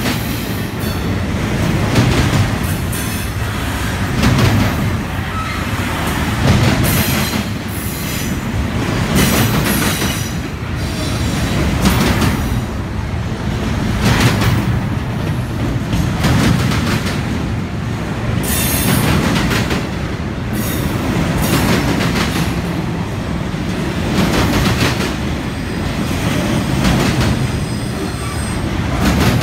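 Union Pacific double-stack container train rolling past: steady rumble and clatter of freight-car wheels on the rails, swelling and fading every couple of seconds as the wheel sets go by.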